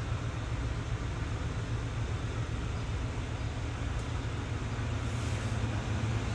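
Steady low hum with an even hiss underneath, unchanging and with no distinct events: background room tone inside the truck's cab.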